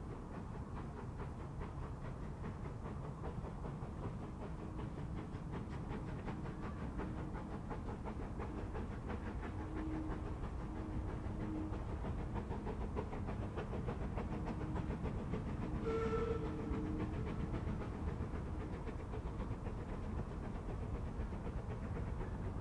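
Narrow-gauge steam locomotive approaching, its running noise slowly growing louder. About two-thirds of the way through it gives a short blast on its steam whistle.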